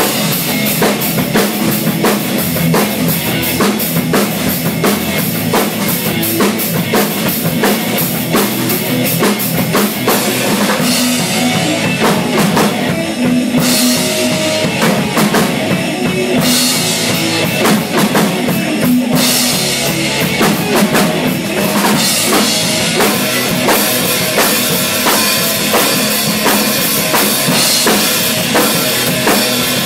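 Acoustic drum kit played hard in a dense rock beat: bass drum, snare and cymbal strikes, with a few heavier cymbal passages. Under the drums runs a rock backing track with sustained pitched notes.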